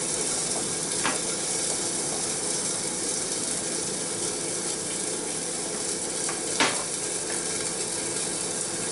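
Scrambled eggs sizzling steadily in a saucepan as they are stirred, with the utensil clicking against the pan twice.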